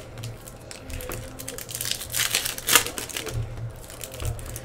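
Trading cards and a foil pack wrapper being handled by hand: short rustles, crinkles and clicks of cards, the loudest a little under three seconds in.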